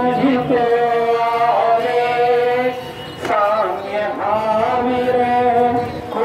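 A man chanting a devotional mantra into a microphone in long held notes, with a short break about three seconds in.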